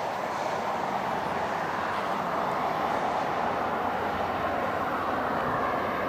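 A VIA Rail passenger train's cars rolling on the rails, making a steady, even noise.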